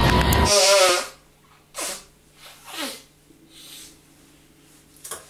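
Loud title music cuts off about a second in; then a man sneezes twice into a tissue, each sneeze falling in pitch, followed by a few short sniffing sounds.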